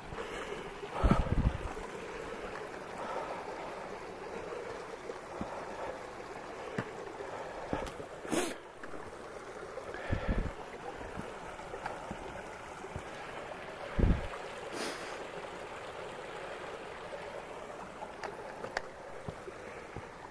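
Small mountain creek running over rocks: a steady rush of flowing water. A few low bumps on the microphone come about a second in, around ten seconds and around fourteen seconds.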